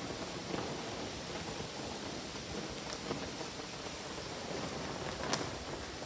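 Strong storm wind blowing through trees, a steady rushing noise, with a short sharper burst a little after five seconds in.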